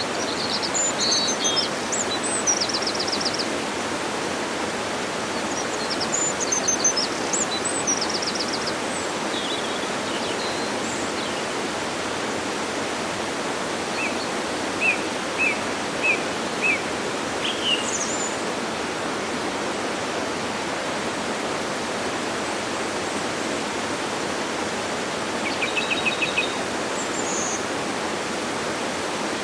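Steady rushing of a waterfall, with birds calling over it: scattered high chirps and trills, including a run of five short notes about halfway through and a brief trill near the end.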